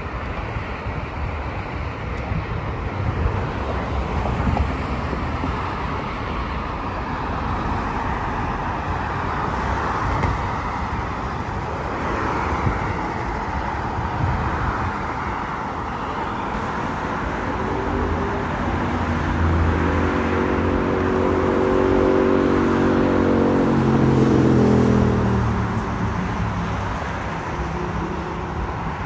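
City street traffic with a steady rush of passing cars. In the second half a vehicle's engine hum grows louder, then drops in pitch as it drives past.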